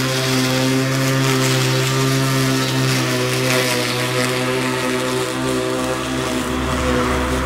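Ruris RXi 3000 cordless battery lawn mower running under load while cutting grass: a steady electric motor hum with the hiss of the blade in the grass above it. A low rumble joins in near the end.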